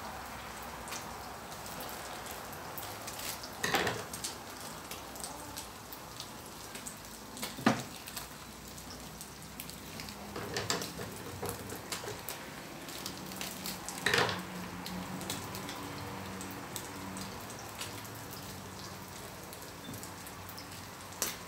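Battered shrimp deep-frying in hot oil in a wok: a steady sizzle full of fine crackling, with a few louder knocks a few seconds apart.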